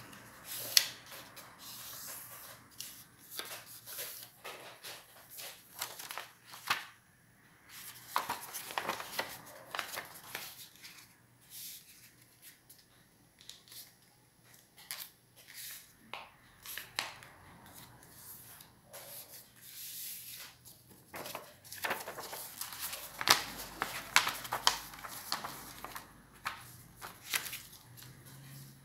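A sheet of black paper being folded by hand: rustling and crackling as it is handled, with sharp crisp strokes as fingers press and run along the creases, in spells with quieter pauses between.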